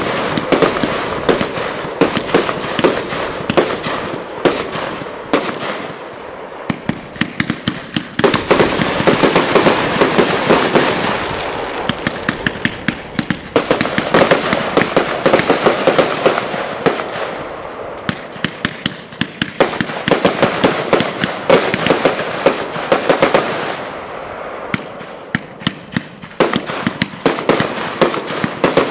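Piromax PXC346 7-in-1 firework compound cake (293 shots) firing: a fast, continuous barrage of shots and bursts. It comes in waves that swell and ease off every few seconds.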